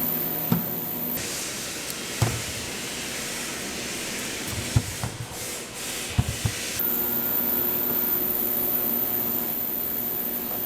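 Processing machinery running with a steady hum and a high whine. A loud hiss, like a spray or air jet, replaces the whine from about a second in until near seven seconds, with a few short knocks and clatters during it.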